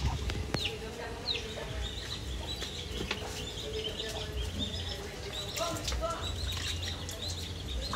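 Small birds chirping over and over, with a few quick downward-sweeping calls, against a low background rumble; a few sharp knocks, most near the start.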